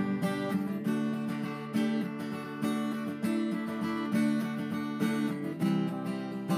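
Background music: an acoustic guitar strumming steady chords.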